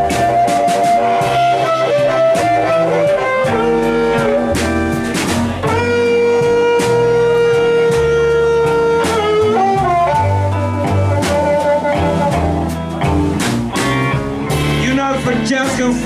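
Live blues band: an amplified harmonica plays a solo of long held and bending notes, one held for about three seconds in the middle, over electric guitars, upright bass and drum kit.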